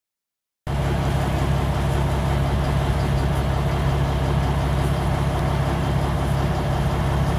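Motorboat engine running steadily while under way, a low drone under a rushing noise of water. It starts abruptly about half a second in.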